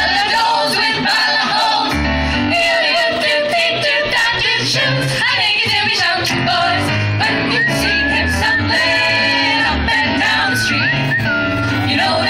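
Mixed male and female vocal group singing a swing tune into microphones through PA speakers, with low bass notes coming in about two seconds in.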